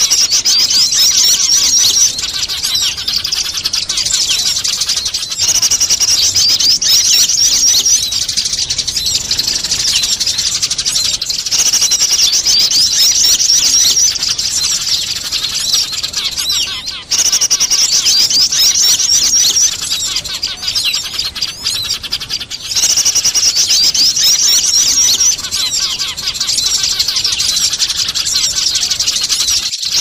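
Bird-lure recording of Eurasian tree sparrows chattering noisily as if fighting, mixed with calls of other small birds. Dense high-pitched chirping comes in loud stretches of two to three seconds that recur about every five to six seconds, with softer chirping between.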